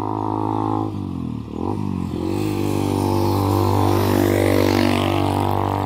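Motorcycle engine passing on the road, its pitch dipping and then climbing again about a second and a half in, over a steady engine hum. It gets louder as it goes by.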